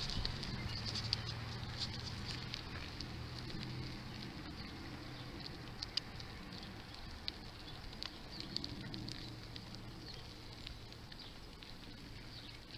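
Giant Chinook bicycle rolling along an asphalt road: a steady rush of tyre and wind noise with scattered light clicks and ticks.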